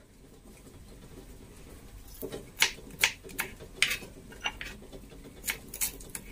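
Kitchen knife slicing shallots on a plastic cutting board. From about two seconds in, the blade strikes the board in irregular sharp taps, a few a second.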